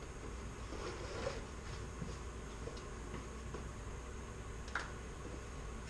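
Low steady hum of a quiet garage, with a few faint clicks and rustles of hand work at a distance, the clearest click just before the end.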